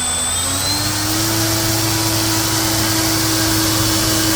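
Brushless 900kv electric motor spinning an 11x5 3D-printed propeller at high throttle, a steady whine with propeller wash. About a second in the pitch rises and then holds steady as the throttle is pushed from three-quarter to full.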